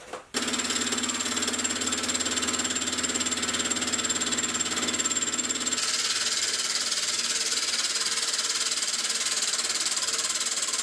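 Sieg X2.7L mini mill taking a facing cut across the top of an annealed steel block with a face mill: the spindle motor running under load with a steady, rapid chatter of the cutter inserts biting the steel. The sound starts abruptly just after the beginning and shifts in tone about halfway through.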